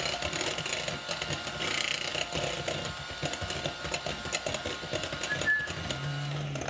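Electric hand mixer running with its beaters in a bowl, beating a wet mix of melted butter, egg and sweetener.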